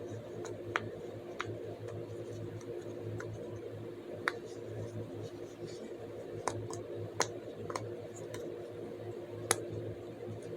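Plastic fidget toy being worked by hand, giving irregular sharp clicks and pops about once a second, over a steady low hum.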